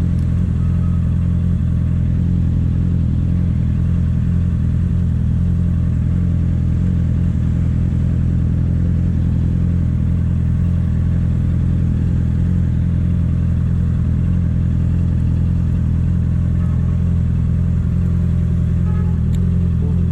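Honda CB650F inline-four engine idling steadily through a Jeskap full aftermarket sports exhaust, at an even, unchanging pitch.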